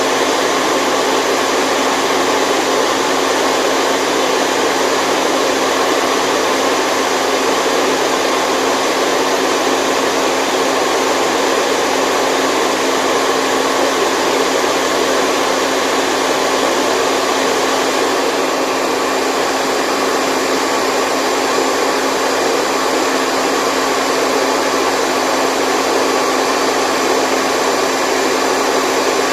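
Steady, unchanging rushing noise with a few faint steady tones running through it and little deep bass: a continuous white-noise track for lulling a baby to sleep.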